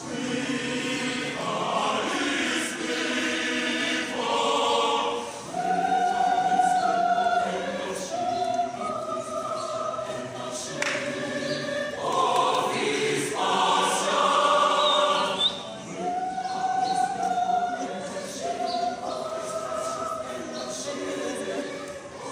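Mixed choir of women's and men's voices singing a choral piece in parts: held chords sung in long phrases, with brief breaks about five and fifteen seconds in.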